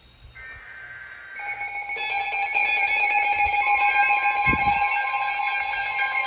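Emergency alert tones for a severe thunderstorm warning. A brief burst of higher-pitched data tones comes first, then several steady electronic alert tones start one after another and sound together, growing louder.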